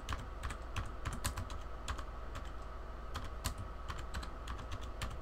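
Computer keyboard being typed on: an irregular run of key clicks as a search query is entered, over a steady low hum.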